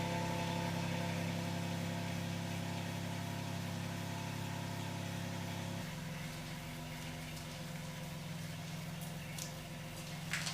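Car engine running steadily at idle; its note drops and changes about six seconds in, and there is a brief click near the end.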